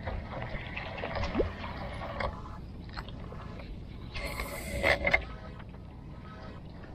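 Light clicks and knocks of a spinning rod and reel being handled in a small boat, with a brief hiss about four seconds in as a cast goes out, followed by a couple of louder knocks.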